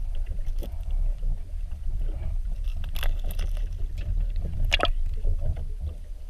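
Muffled underwater sound from a submerged camera: a steady low rumble of water against the housing, with two sharp crackles about 3 and 5 seconds in.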